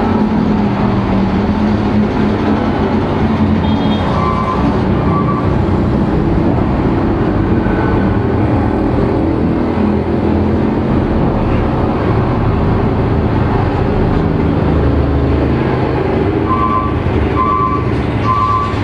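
A vehicle engine running steadily close by, with a reversing alarm beeping in short repeated pulses about four seconds in and again near the end.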